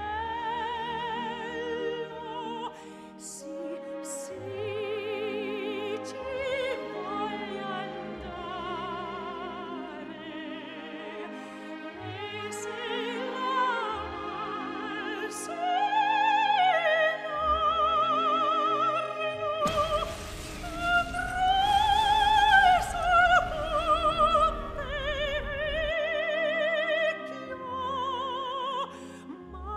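Operatic singing with a wavering vibrato over orchestral accompaniment. About twenty seconds in, a loud rushing noise joins the music for some six seconds.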